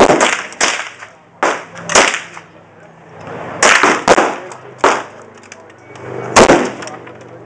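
Gunshots from firearms: about eight sharp reports, irregularly spaced, some in quick succession.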